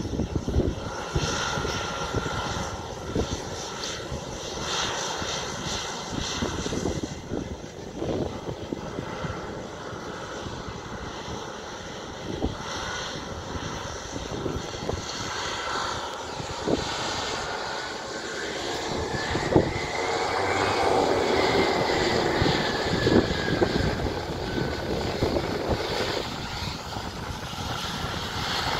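Small twin-engine airliner's engines running during a ground run-up, a steady drone with a high whine that rises and falls again about two-thirds of the way through.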